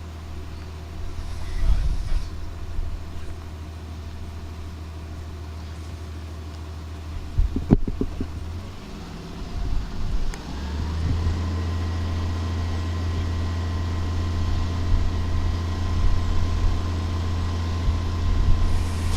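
An engine idling with a steady low hum. A sharp knock comes about eight seconds in. A couple of seconds later the hum steps up louder, and a faint whine rises and then holds steady.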